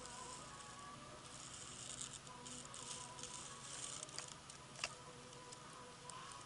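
Black racer snake crawling through dry leaves and grass close to the microphone: faint crackling rustles through the middle, then one sharp tap about five seconds in.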